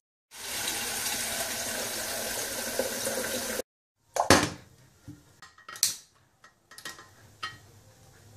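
Tap water running steadily into a small stainless steel pot in a sink, stopping abruptly after about three seconds. Then a few sharp metallic clinks and knocks, the loudest just after the water stops.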